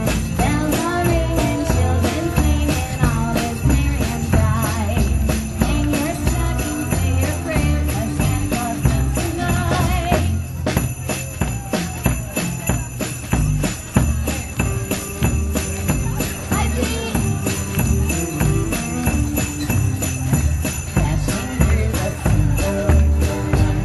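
Live band music with jingle bells shaken steadily throughout, over a saxophone melody and a bass line.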